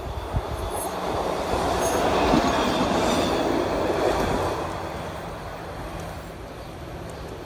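SEPTA Route 101 Kawasaki light-rail trolley passing on its tracks: the running noise of its wheels on the rails builds to a peak about two to three seconds in, then fades as it moves away.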